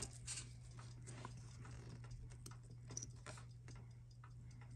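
Faint, scattered small clicks and taps of steel tweezers against a mechanical watch movement's metal parts as a toothed wheel is lifted out, over a low steady hum.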